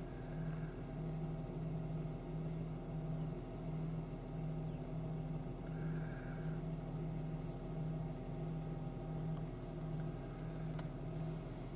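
Vehicle engine idling, heard from inside the cabin: a steady low hum that swells and fades a little more than once a second.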